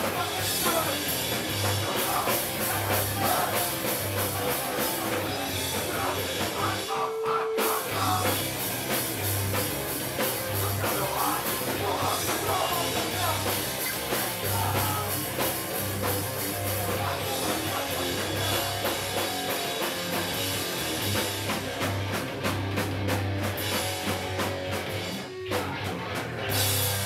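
Live rock band playing loud guitar and drums, with a short break in the playing about seven seconds in.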